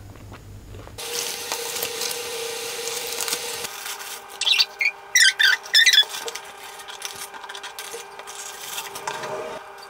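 Paper burger wrapper rustling and crinkling as it is handled and unwrapped, with a cluster of sharp, loud crinkles in the middle.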